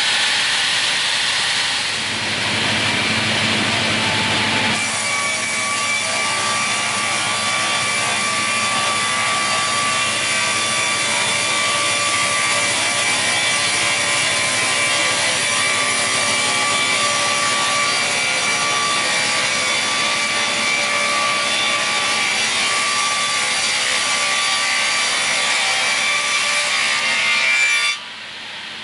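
Raimann KR 230D crawler-feed multi-rip circular saw running, first spinning with no workpiece with a hiss, then from about five seconds in ripping a bark-edged wooden slab fed through on its track: a steady sawing noise with a thin whine over it. The cut stops abruptly near the end.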